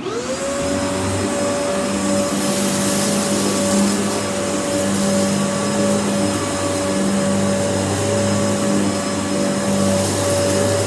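Kenmore upright vacuum cleaner switched on: its motor spins up over about half a second to a steady whine and keeps running with a steady rush of air.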